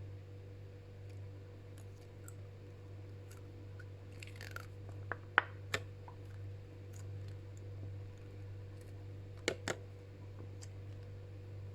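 A few light clicks and taps from handling a toothpaste tube and a bowl while toothpaste is put onto the shampoo, over a steady low hum. There is a short falling squeak about halfway through, then three clicks, and two more clicks near the end.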